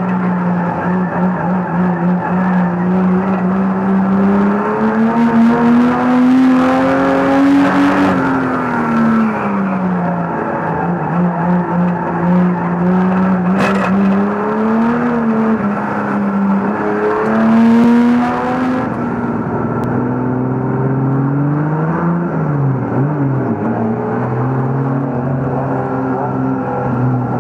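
Banger racing car's engine heard from inside its cabin, revving up and falling back again and again as the driver accelerates and lifts. A single sharp knock comes about fourteen seconds in.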